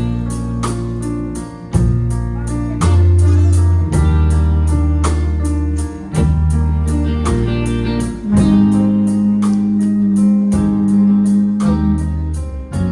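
Live band playing an instrumental passage: guitar and keyboard chords over a bass line, with evenly spaced picked notes and the bass changing every second or two.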